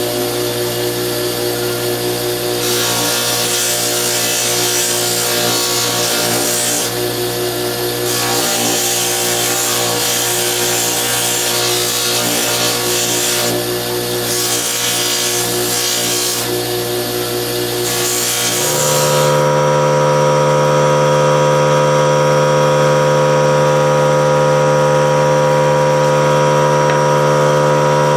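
Motor-driven wheel running with a steady hum while steel is pressed against it, a rasping grind that comes and goes with short breaks. About two-thirds of the way through the grinding stops and a louder, higher steady machine hum takes over.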